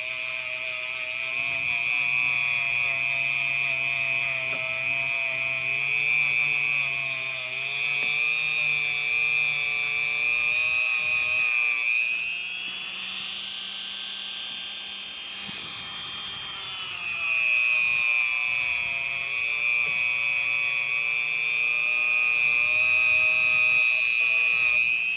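Dremel rotary tool with a brass wire wheel running, a steady high-pitched whine, cleaning up metal edges. About halfway through the pitch shifts for several seconds before settling back, as the load on the wheel changes.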